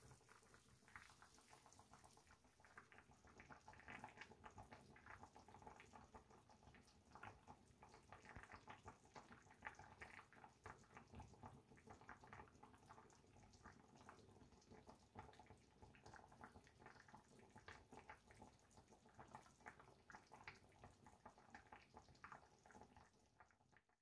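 Faint, irregular bubbling and popping of a rib braise (galbi-jjim) simmering in a cast-iron pot.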